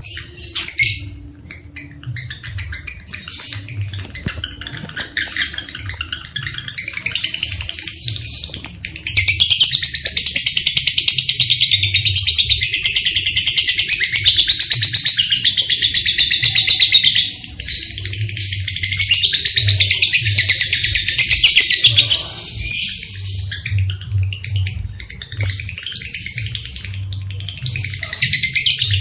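Lovebirds chattering in rapid, high-pitched trilling calls, with a long unbroken trilling run from about nine to seventeen seconds in and another shortly after.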